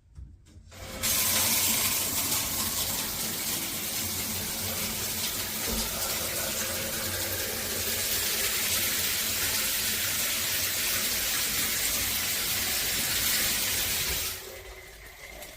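High-pressure Speakman S-2005-HB shower head spraying water with its flow restrictor removed, a strong steady hiss of water that starts about a second in and fades away near the end.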